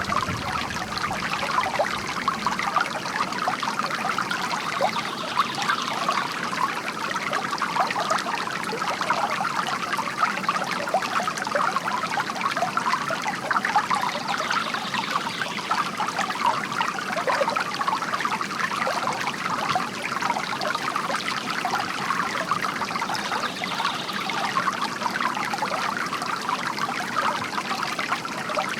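Water from a bamboo fountain trickling and splashing into its basin in a steady, unbroken patter.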